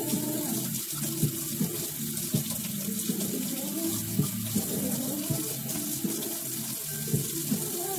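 Kitchen faucet running steadily into the sink, turned on suddenly at the start.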